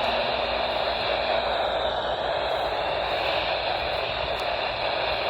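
Weather radio receiver hissing with steady static from a weak, noisy signal, with no voice on the channel.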